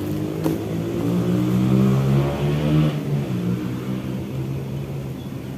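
A motor vehicle's engine passing by, swelling to its loudest about two seconds in and then fading away.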